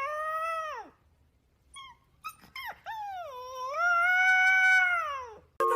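Two long, drawn-out wailing calls from an animal, each held and then sliding down in pitch at the end, with a few short chirps in between.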